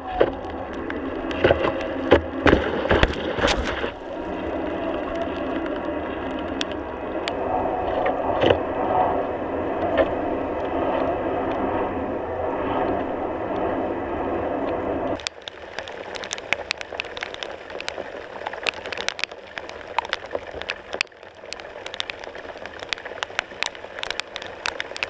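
Water rushing steadily past a sailing windsurf board, heard muffled through a board-mounted GoPro housing, with a few sharp knocks in the first few seconds. About fifteen seconds in the sound cuts to a quieter hiss with many scattered crackles and ticks.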